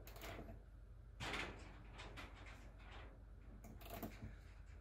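Faint clicks and light knocks of a car door being handled and settled onto its latch, the loudest a short knock about a second in.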